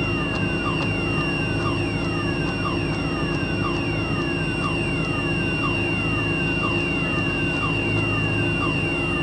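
A steady machine drone under an electronic alarm: a quick falling chirp repeats about one and a half times a second over a steady high tone.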